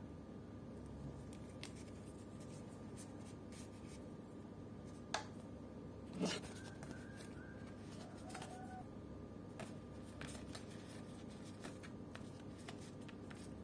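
Faint clicks and rustles of a plastic action figure being handled while its cape is fitted on, with two sharper clicks about five and six seconds in, over a faint steady hum.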